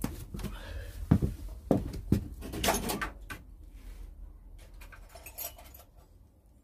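A few sharp knocks and clinks of hand tools being handled, four in the first three seconds, then faint rustling.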